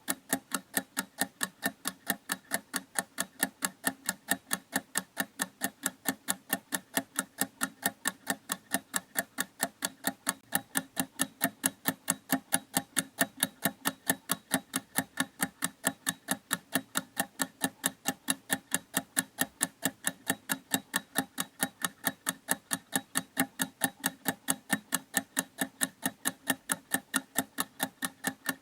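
Clock ticking steadily: sharp, evenly spaced ticks, several a second, without a break.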